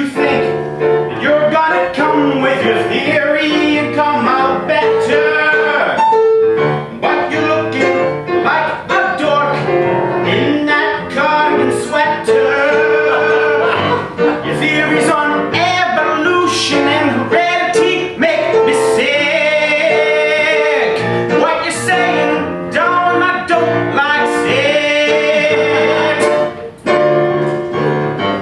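Improvised song: singing with piano accompaniment throughout.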